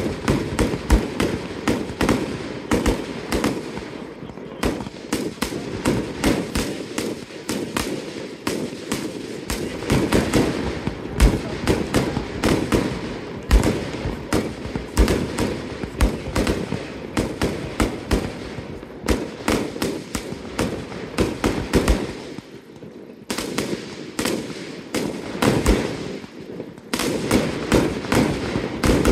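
Fireworks display: a rapid, near-continuous string of bangs and crackles from rising comets and bursting aerial shells, with a short lull about three-quarters of the way through.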